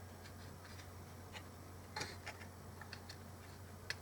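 Faint clicks and taps of small plastic speaker parts being handled and fitted together, with a louder click about two seconds in and a sharp one near the end.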